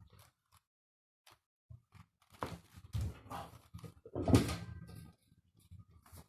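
Scattered short clicks and knocks, then a run of louder knocks and body-movement noises, the loudest about four seconds in, from a person working to crack their upper back.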